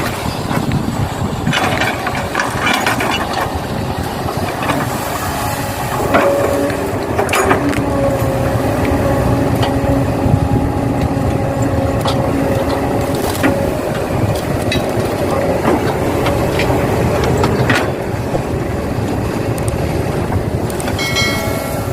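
Excavator at work loading soil, running steadily with a pitched whine from about six seconds in until about eighteen seconds, and scattered knocks and clatters.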